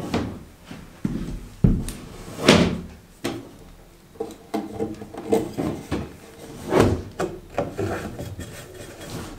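Irregular knocks and rubbing against wooden framing as electrical cable and boxes are handled, with a few sharper knocks among them.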